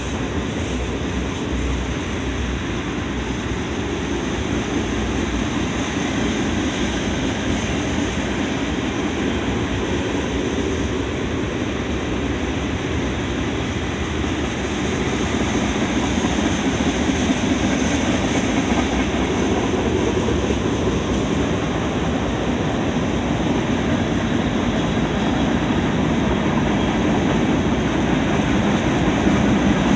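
Freight cars of a sand train rolling past: covered hopper cars, then empty centerbeam lumber cars, making a steady rumble and rail noise that grows a little louder about halfway.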